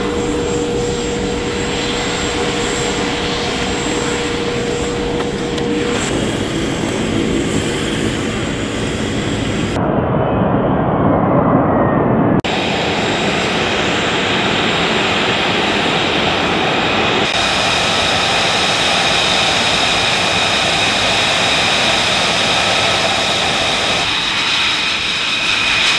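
Military aircraft engines running on a flight line: a steady turbine whine over a continuous roar, changing abruptly several times. From about ten seconds in, for two or three seconds, a deeper, louder roar from an F-35B Lightning II's jet engine as it hovers down to land; the steady high whine returns after it.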